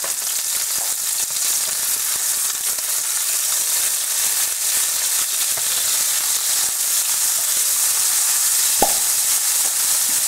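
Ground-beef patties frying in hot fat in a non-stick pan, with a steady, high-pitched sizzle. A single sharp tap comes near the end.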